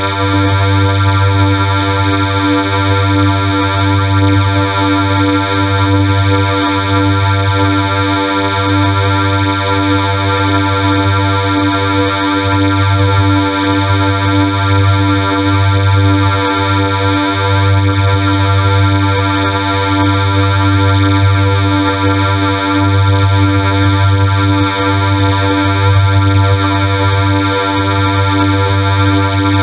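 Loud, harsh electronic drone: many steady tones stacked over a strong low hum, holding unchanged throughout.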